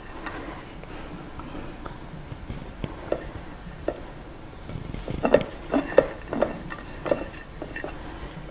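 Grated fresh mozzarella being sprinkled by hand from a plate over a casserole: faint rustling, with fingers scraping and tapping the plate and dish in scattered small clicks, most of them in the second half.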